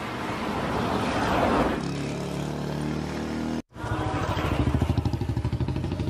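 Motorcycle engine running as the bike rides up and passes close by, growing louder to a peak and then easing. After a sudden brief break, a Honda motorcycle's engine idles with a fast, even beat.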